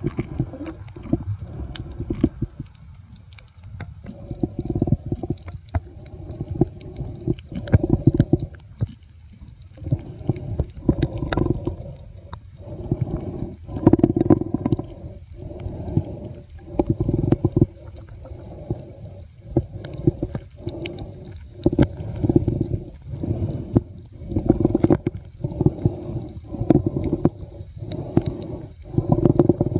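Underwater water noise heard through a camera sealed in a soft waterproof pouch: a muffled, gurgling low rumble that surges and fades about once a second.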